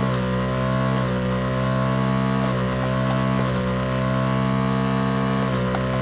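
Vacuum pump of a desoldering iron running steadily with a loud hum. Its pitch shifts slightly every second or two, with a few faint clicks.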